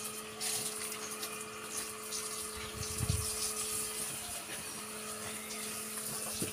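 Water running steadily through a garden hose, over a steady low hum, with a single dull thump about three seconds in.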